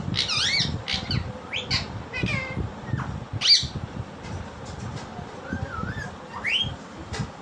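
Pet parakeet squawking and calling in a string of short, sharp calls with bending, wavering pitch, the loudest about halfway through, then a wavering whistle and a rising call near the end. A low background rumble runs underneath.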